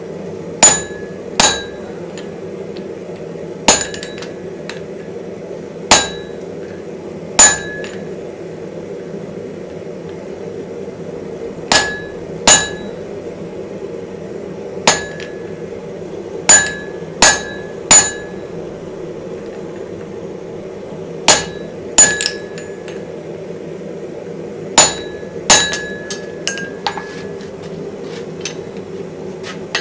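Hand hammer striking glowing steel on a French anvil, each blow leaving a short bright ring. About fifteen blows at an unhurried, uneven pace, often in pairs, with a few lighter taps near the end.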